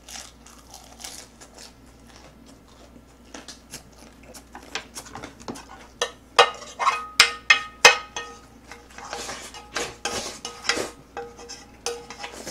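Chopsticks scraping and clicking against a pan, gathering the last of the Jjapaghetti; a run of sharp clicks and knocks, some with a short ringing tone, thickening from about four seconds in.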